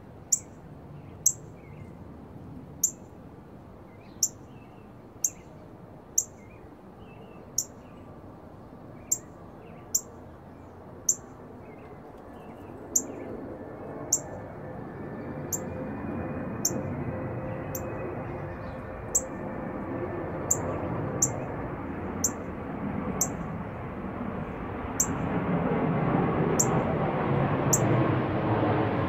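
Northern cardinal giving sharp, high chip calls, about one a second. Underneath, a rushing background noise builds steadily louder through the second half.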